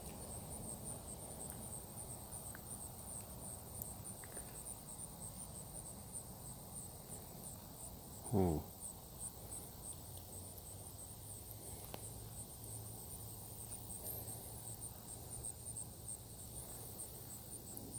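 Crickets chirping in a steady, high-pitched pulsing trill. A brief sound falling sharply in pitch cuts in once, about eight seconds in.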